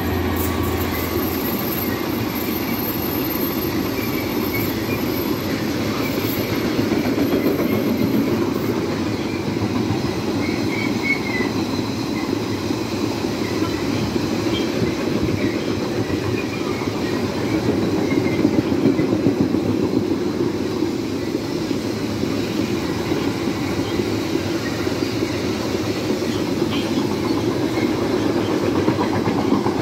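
Long freight train of wagons rolling steadily past, wheels clacking over the rail joints, with a few faint wheel squeals in the first third.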